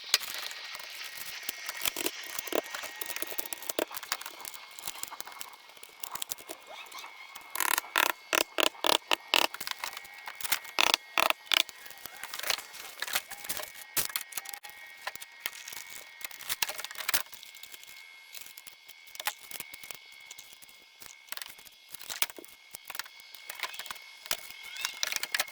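Carpentry work: scattered sharp clicks and knocks, with a quick run of loud strikes, about three a second, between about eight and twelve seconds in. A faint steady high whine sits under it.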